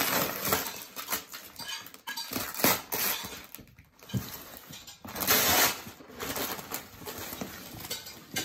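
Gift wrap crinkling and a cardboard box rustling and scraping as a wrapped package is pulled out of its shipping box. It comes in uneven bursts, the loudest about five seconds in.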